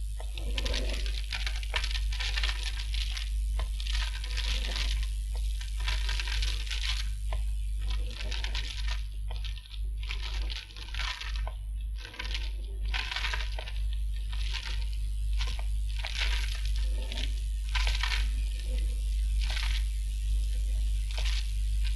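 A run of short, irregular scraping and rustling noises over a steady low mains hum.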